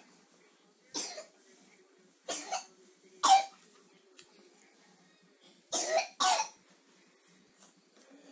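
A series of short, harsh coughs in small groups, about six in all, the lingering cough of someone on the mend from an illness.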